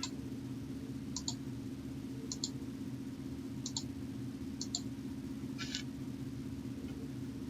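Computer mouse buttons clicking about five times, each a quick press-and-release pair, over a steady low hum.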